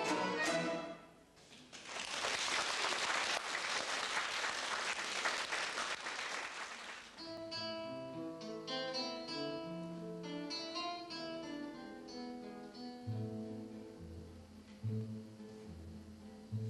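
A small folk-instrument ensemble's last notes ring and stop about a second in, and applause follows for about five seconds. After a cut, a quartet of acoustic guitars plays plucked melody notes over a low bass line.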